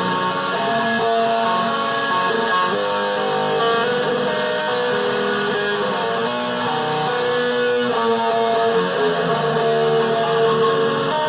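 Dean Switchblade electric guitar with DiMarzio pickups, played through an amplifier: a continuous run of held chords and notes that change every second or so.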